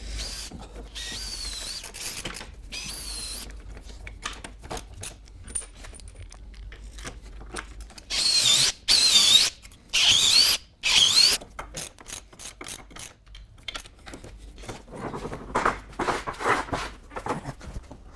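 Cordless drill whining in short runs as it pre-drills holes and drives lag screws through caster wheel mounting plates into the timber frame. The pitch wavers as the trigger is worked, and the loudest runs come about halfway through, three in quick succession. Near the end comes a run of knocks and rattles.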